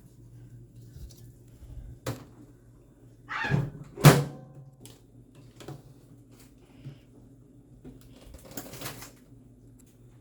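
Microwave oven door being handled: a click about two seconds in, then a knock and a sharp loud slam just after four seconds, over a low steady hum.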